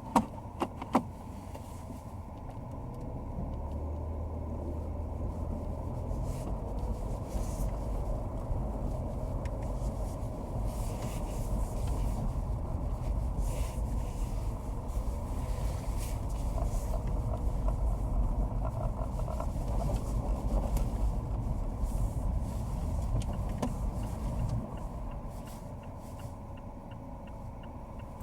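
2011 Mazda 3 1.6 automatic moving off cold at low speed. Two sharp clicks come about a second in; a low running and road rumble builds a few seconds later and falls back near the end as the car stops.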